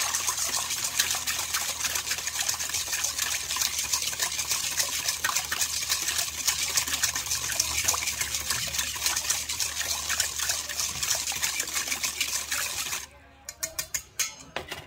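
Wire whisk beating a thin liquid marinade in a stainless steel bowl, a fast continuous scraping and clicking of metal wires against the metal bowl with sloshing liquid. It stops about 13 seconds in, followed by a few sharp clicks.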